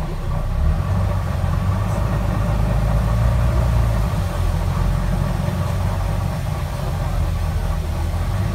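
Diesel engine of a Wright Eclipse Gemini 2 double-decker bus running steadily, a low drone heard from inside the upper deck.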